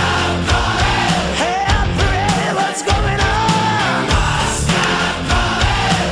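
Rock song with a singing voice over bass and drums.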